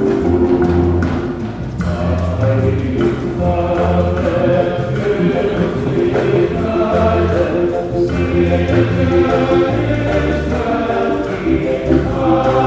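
Choir singing with instrumental accompaniment over a steady beat.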